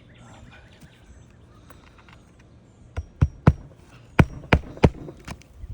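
Hammer driving roofing nails into asphalt shingles: two quick runs of sharp strikes, three then four, starting about halfway through. Each nailing shakes granules loose from the aged shingles.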